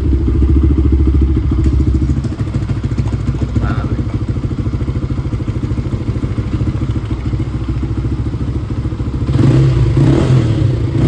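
Motorcycle engine idling with a fast, even pulse, growing louder near the end.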